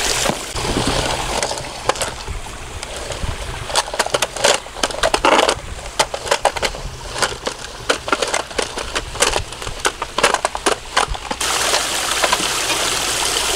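Irregular crunching and knocking of ice chunks and plastic toy trucks being pushed through a frozen pond. A small waterfall runs steadily underneath.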